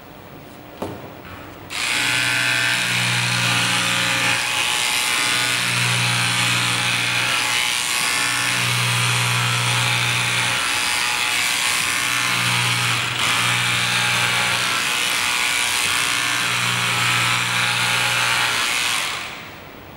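Handheld cordless electric scissors running and snipping through cloth: a click about a second in, then the motor and reciprocating blade start about two seconds in with a steady buzzing chatter, and stop near the end. A lower hum comes and goes in stretches of a couple of seconds as the blade works through the cloth.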